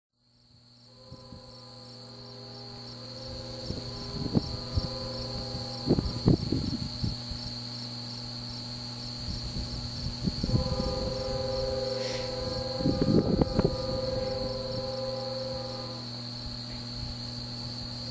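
A distant diesel locomotive's multi-note air horn sounding, in shorter blasts and then one long chord from about ten to sixteen seconds in, over steady high chirring of insects. Gusts of wind buffet the microphone now and then.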